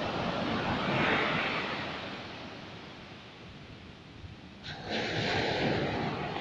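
Sea waves breaking on a beach: a wash of surf swells about a second in and then recedes and fades. Near the end the sound changes abruptly to a steadier rushing noise.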